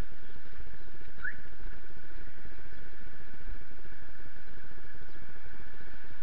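Steady outdoor noise with a low rumble, picked up by a body-worn camera's microphone while walking. A brief rising squeak about a second in.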